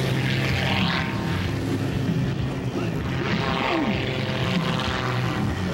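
Pitts S-2S aerobatic biplane's piston engine and propeller droning steadily overhead as it climbs, the pitch wavering a little.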